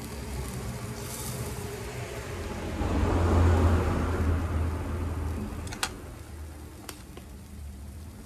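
Meat sizzling on a small tabletop grill, under a low rumble that swells up and fades away over a few seconds in the middle. Two sharp clicks come near the end.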